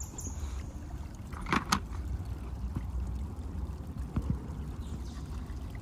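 Sharp clicks of a small die-cast toy car being handled: two quick clicks about one and a half seconds in and a softer pair around four seconds, over a steady low outdoor rumble.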